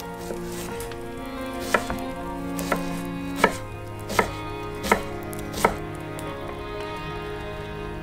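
Chef's knife chopping a peeled onion on a wooden cutting board: six sharp knocks of the blade on the board, about three-quarters of a second apart, starting a couple of seconds in and stopping about two seconds before the end.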